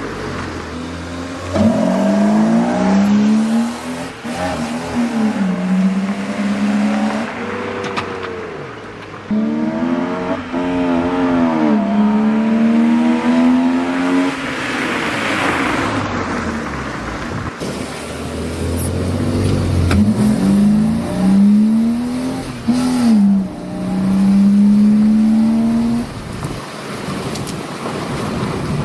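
BMW E36 328i's straight-six engine, fitted with a Dinan intake, revving: its note climbs and drops several times over the stretch.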